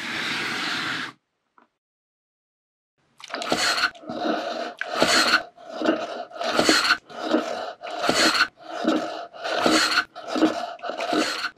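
Dried bonito (katsuobushi) being shaved on a wooden kezuriki plane box, each push across the blade a rasping scrape. There is one scrape at the start, a short pause, then a steady run of strokes about one every half second to second.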